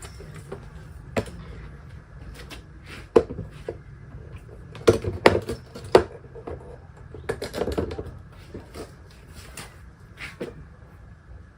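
Folding car dog ramp being unhooked and folded into fours: irregular clicks and knocks, thickest in a run of clacks about five to eight seconds in.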